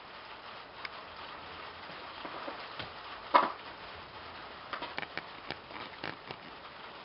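Golden eagle feeding from a plastic tray of raw meat: short sharp clicks and knocks as its beak picks at the meat and strikes the tray. The loudest knock comes about three seconds in, with a cluster of smaller clicks a couple of seconds later, over a faint steady hiss.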